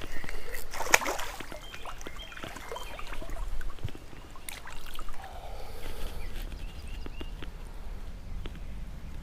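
Water splashing as a hooked wiper thrashes at the surface while it is reeled in, loudest about a second in, over steady river water, with short high chirps repeating throughout.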